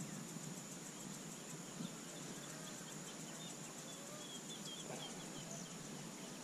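Faint outdoor ambience: a steady, high-pitched insect drone, with a run of faint short bird chirps about halfway through.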